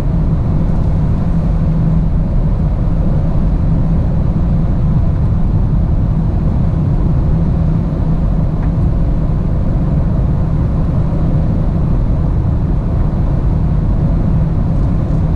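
Steady low rumble of a vehicle driving along a road: engine and road noise at a constant speed.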